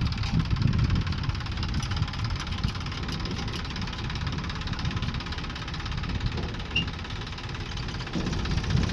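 Diesel engine running steadily, swelling briefly a little louder near the end.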